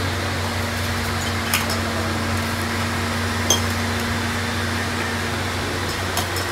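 Steady electric machinery hum with a low drone, broken by a few short, light clicks and one small metallic clink about three and a half seconds in.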